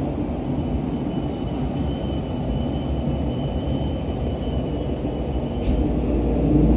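Cabin running noise of a JR East E531 series electric train: a steady low rumble with a faint thin high tone over it. A single sharp click comes about five and a half seconds in, and the rumble grows louder near the end.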